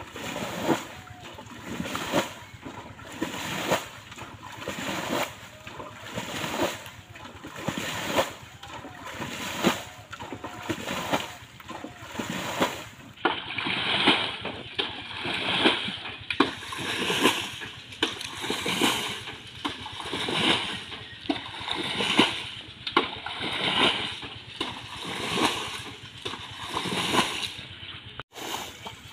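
Water being bailed by hand with a metal bowl: a scoop and a splash of thrown water about once a second, steady and repetitive. This is bailing water out of a section of pond closed off with a bamboo barrier, to drain it for catching fish.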